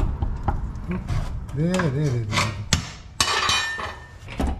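Pry bar working a manual transmission back off the engine: irregular metal clicks and knocks, with a scraping rush about three seconds in. A short strained vocal sound comes from the mechanic around the middle.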